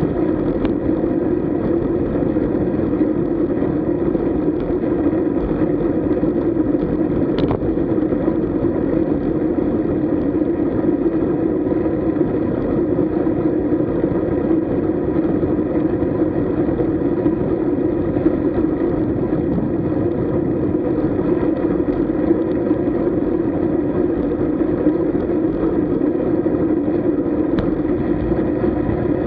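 Steady wind and road rumble from a road bicycle riding along at speed, with a few faint ticks.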